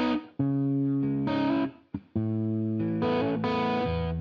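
Background music: a distorted electric guitar playing held notes and chords, with a couple of brief breaks.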